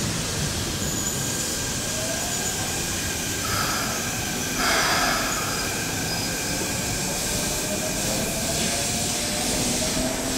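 Keikyu 2000-series electric train pulling into the platform and braking to a stop, with a faint motor whine that changes pitch and a short burst of noise about halfway through as it halts.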